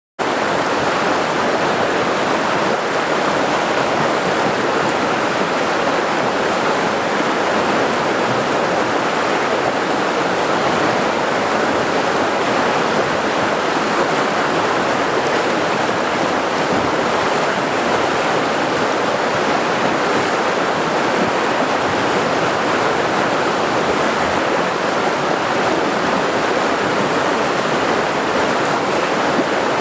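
Flowing river water: a steady, unbroken sound that stays at the same level throughout.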